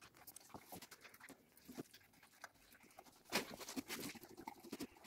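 A dog eating soft food from a plastic bowl: faint, irregular smacking and licking clicks, with a louder clack about three and a half seconds in.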